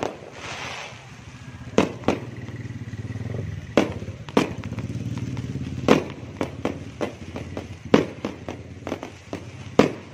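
Fireworks and firecrackers going off: a string of sharp bangs at irregular intervals, coming more quickly in the second half, over a steady low rumble.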